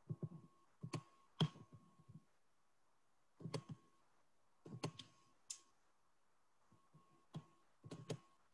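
Faint clicks of a computer mouse, singly and in quick pairs or threes, in small groups with pauses of a second or two between them.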